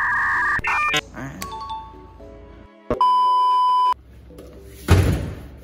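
Background music laid with edited sound effects: a steady electronic tone at the start, a held beep of about a second three seconds in, and a loud whoosh-like hit about five seconds in.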